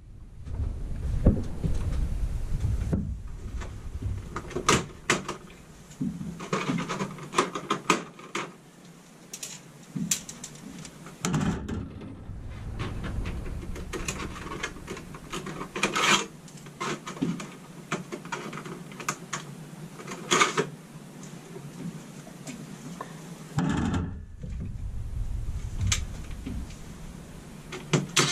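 Scattered clicks, taps and knocks of hands working the plastic ceiling grille of a Coleman Mach rooftop air conditioner loose and handling it, with rustling between the strokes.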